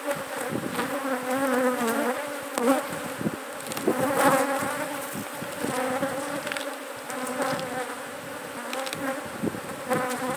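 A honeybee colony buzzing around an opened hive: a steady, wavering hum, with a few sharp knocks of comb frames being handled and shaken.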